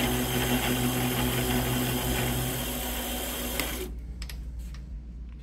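Manual milling machine taking a finish pass on a metal part: the spindle motor hums steadily under the noise of the cutter, then the sound dies away about three to four seconds in.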